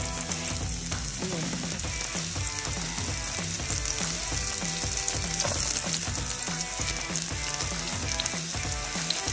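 Chopped red onion and garlic frying in a little oil in a pan, with a steady sizzle.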